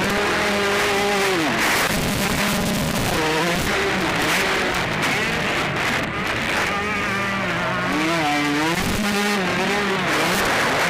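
Motocross bike engines racing, revving up and down repeatedly as riders work through the gears and throttle around the track.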